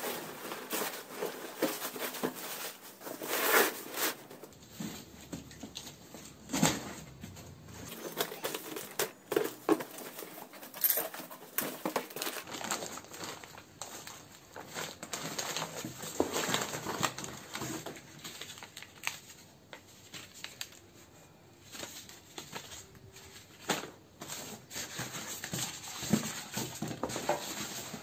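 Cardboard box and plastic packaging being handled while unpacking: irregular crinkling and rustling of plastic wrap and bags, with cardboard scraping and short sharper sounds now and then.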